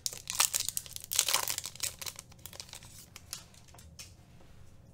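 Foil wrapper of a Topps Finest trading-card pack being torn open and crinkled: dense crackling for about two seconds, then quieter, with a few faint clicks.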